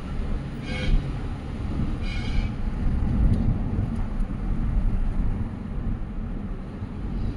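Steady low rumble of a moving road vehicle, with two brief higher-pitched sounds about one and two seconds in.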